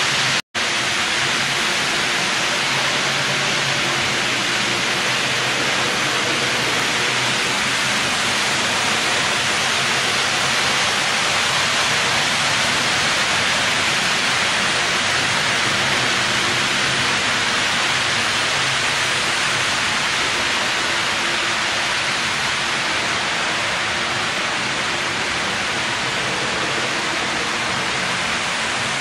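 Steady rushing noise with a faint low hum underneath, broken by a brief dropout about half a second in.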